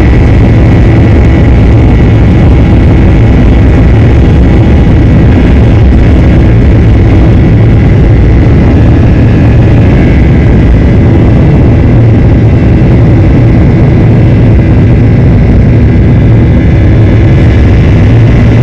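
Boeing 737 jet engines at takeoff thrust, heard from inside the cabin during the takeoff roll: a loud, steady roar with a faint high whine running through it.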